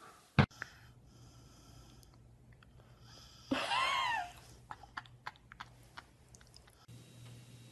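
A sharp knock about half a second in, then a short high squeal that rises and falls in pitch. After it come scattered wet smacking clicks of a dog licking a person's face.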